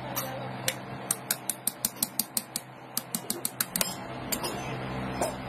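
Rapid light clicks and taps of a lead-acid battery's hard plastic lid being pressed and tapped down onto its case, about five a second for roughly three seconds, then thinning out, over a steady low hum.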